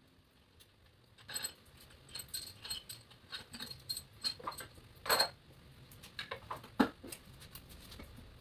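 Metal tools and engine parts clinking and clanking as the cylinder head is taken off a Honda J-series V6 engine block: scattered light clicks, with a louder clank about five seconds in and another sharp knock near seven seconds.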